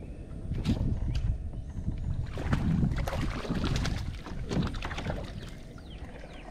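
Knocks, clatter and water noise on a fishing kayak, with a low rumble of wind on the microphone; the knocking is busiest from about two to five seconds in.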